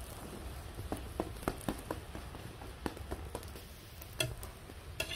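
Metal spatula pressing and tapping a puffing, ghee-roasted semolina-stuffed sweet flatbread on a hot tava: a scattered string of light taps and clicks.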